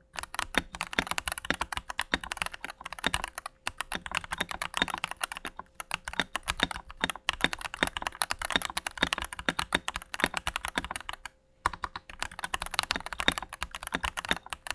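Typing on a Keychron V1 mechanical keyboard modded with a tape mod, PE foam on top of the PCB and relubed stabilizers. It is a fast, steady run of clean, poppy keystrokes, with a brief pause about eleven seconds in.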